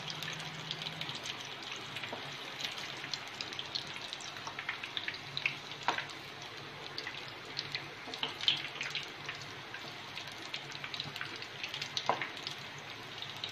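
Chicken kola urundai (chicken meatballs) deep-frying in hot oil in a pan: a steady sizzling hiss dotted with small crackles and a few sharper pops. A faint low hum runs underneath.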